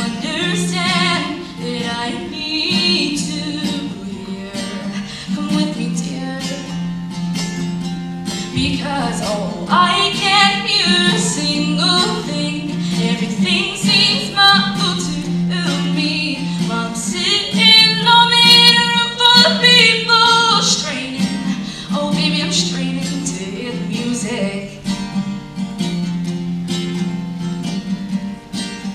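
A solo singer accompanying themselves on a strummed acoustic guitar. The singing swells louder with long held notes a little past the middle.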